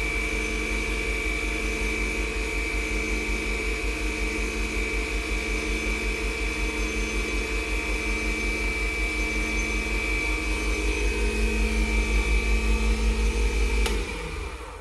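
Wood lathe running steadily at about 3,200 RPM with a constant high whine, the wax-finished piece being buffed with a cloth; about 14 seconds in the motor is switched off and winds down.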